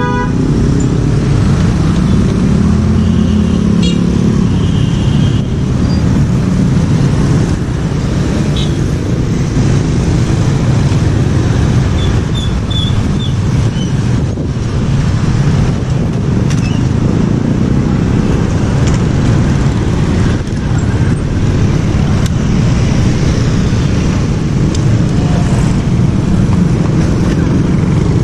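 Busy street traffic, mostly motorcycles with some cars, passing steadily in a continuous low engine and tyre rumble.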